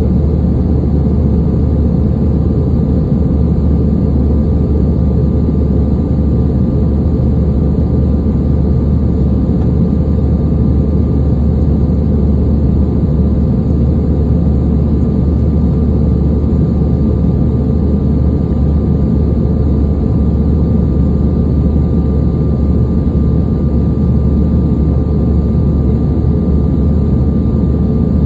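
Steady cabin noise of a Sukhoi Superjet 100 airliner in flight, heard inside the cabin: a constant low rumble of airflow and its two SaM146 turbofan engines, with a thin steady whine above it.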